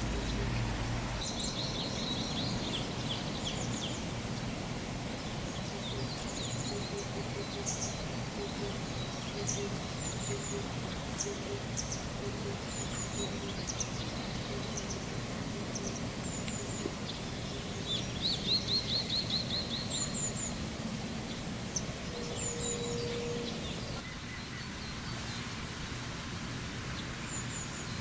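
Songbirds chirping over the steady rush of a nearby stream, with a rapid trilled song about a second in and again about two-thirds of the way through.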